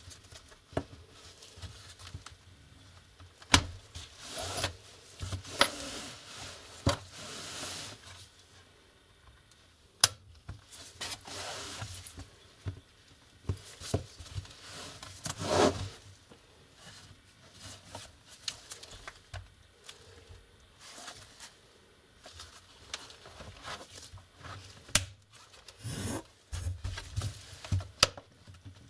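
A Lenovo IdeaPad laptop's plastic case being handled and turned over on a table: scattered sharp clicks and knocks, with rubbing and scraping between them.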